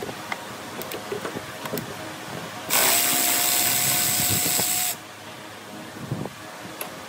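A power tool runs for about two seconds, spinning up quickly and then holding a steady pitch, with light clicks and knocks of tools and parts before and after it.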